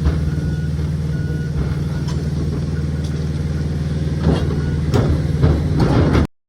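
Diesel engine of a John Deere 135P excavator running steadily while a travel/backup alarm beeps about once a second for the first two seconds. A few sharp knocks come near the end, then the sound cuts off suddenly.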